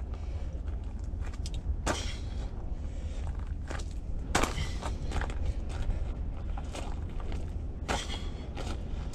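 Sneakers thudding and scuffing on gravel as a man jumps and lands, with three sharp landings about 2, 4½ and 8 seconds in and lighter crunches between them. A steady low rumble runs underneath.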